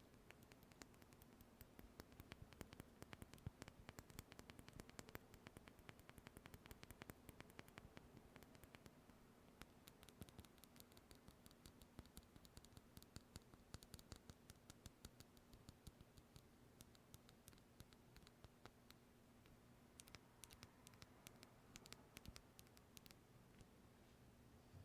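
Faint tapping and scratching close to the microphone: many small, quick clicks, dense at first, then sparser with another flurry near the end, over a faint steady hum.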